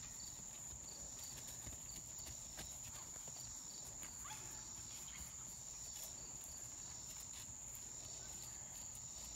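A horse walking, its hooves clopping faintly and irregularly.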